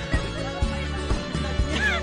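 Background music with a steady beat, about two beats a second, over a held bass line and a gliding melody.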